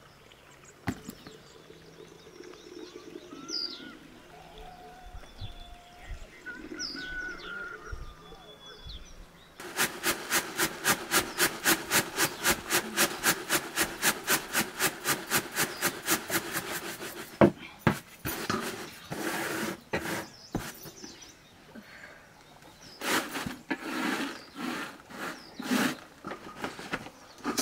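Faint birds chirping, then a fast, even run of sharp knocks, about five a second, for some seven seconds, followed by scattered knocks.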